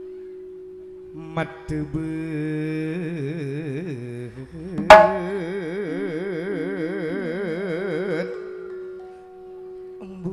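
Madurese gending music: a long wavering vibrato note rises over a steady held drone, with two sharp strikes before it and one very loud sharp percussion stroke about halfway through.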